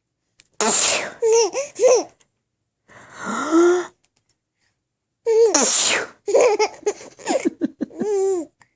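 A person sneezes twice, about half a second in and about five seconds in. Each sneeze sets off a baby's high-pitched giggling laughter, and the laughter after the second sneeze runs on as a quick string of short laughs.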